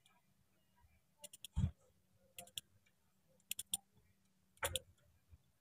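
Faint scattered metallic clicks, single and in small groups, from a ratchet and 12 mm deep socket loosening a bolt on a Toyota Rush's alternator bracket. A slightly heavier knock comes about one and a half seconds in.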